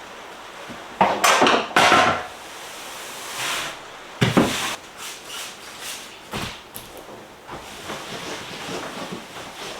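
Several loud wooden knocks and clatters, a cluster of them about a second in and more around four and six seconds, over a steady hiss.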